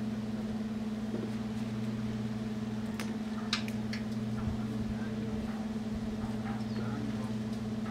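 Steady low mechanical hum, with a few short sharp clicks about three seconds in.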